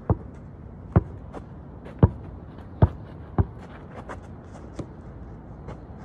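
Basketball dribbled on bare dirt and grass: five sharp bounces, unevenly spaced, over the first three and a half seconds, then a few fainter taps.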